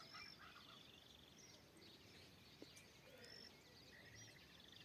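Faint morning chorus of several wild forest birds: short high whistles and rapid trills from different birds, overlapping now and then.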